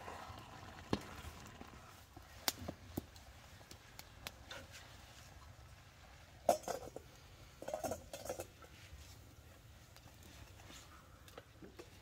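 Scattered light knocks and scrapes of a bamboo spatula against a metal cooking pot as rice is stirred over a wood fire. A few louder clatters come a little past halfway.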